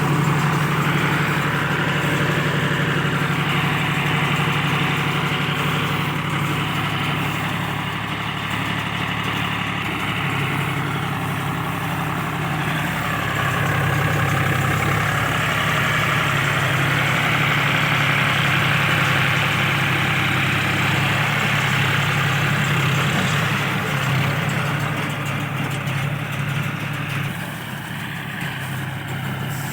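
Tractor engine running steadily under load while a round baler works straw, with a broad clattering machinery noise over the engine note that swells and eases, falling off a little near the end.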